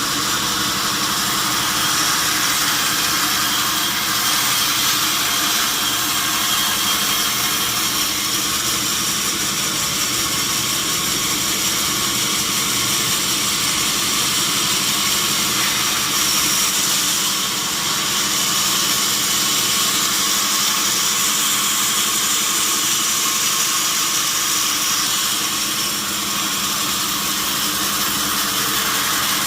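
Sawmill machinery running steadily: a constant mechanical drone with a strong high hiss, dipping slightly twice in loudness.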